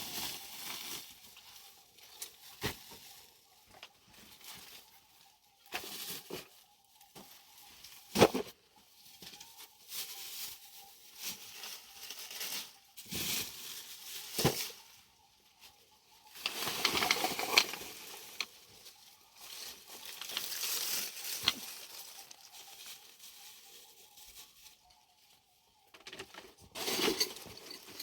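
Irregular rustling and crinkling handling noises with a few sharp knocks.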